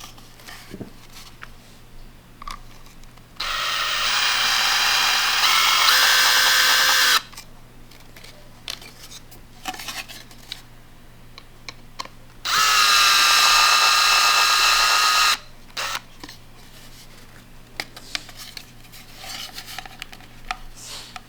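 Power drill running in two runs of a few seconds each, with a steady motor whine. Its pitch steps up partway through the first run.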